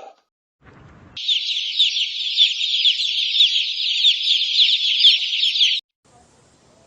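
Many small birds chirping at once, a dense high-pitched chatter of quick repeated notes. It starts abruptly about a second in and cuts off sharply near the end.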